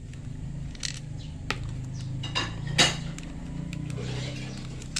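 A few sharp clicks and clinks of small parts being handled while a small 12-volt ceiling fan is assembled, over a steady low hum.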